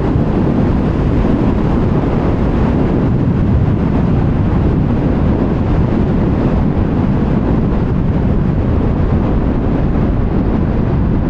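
Steady wind rush over the microphone and the KTM 1390 Super Duke R's V-twin running at an even road speed, with no revving or gear changes.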